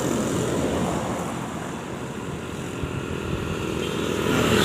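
Engine noise of a passing road vehicle, dipping in the middle and building again near the end.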